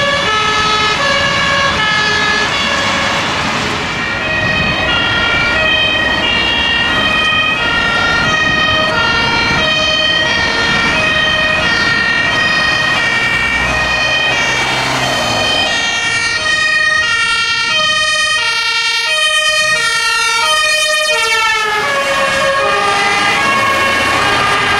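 Several German fire-engine two-tone sirens (compressed-air Martinshorn) sounding at once, each at its own pitch and out of step with the others, with truck engines running underneath. A steady high tone runs alongside through most of it.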